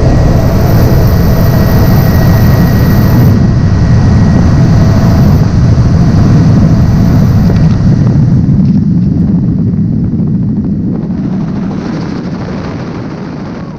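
Helicopter in flight heard from on board: a steady low rotor and engine drone that fades out over the last few seconds.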